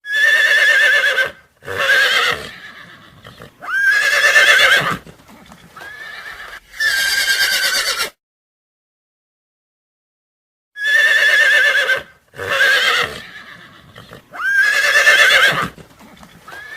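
Horse whinnying: a run of four loud, quavering neighs, then after a few seconds of silence the same run again.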